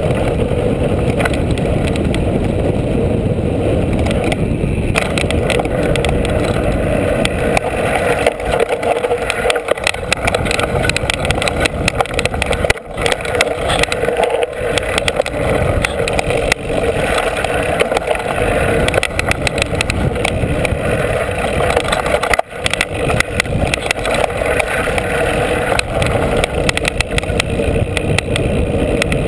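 Mountain bike riding fast downhill, its knobby tyres rolling over a wooden slatted trail feature and then dirt, heard from a handlebar-mounted camera: a loud steady rush of wind and tyre noise with constant rattling of the bike. The noise drops out for an instant twice.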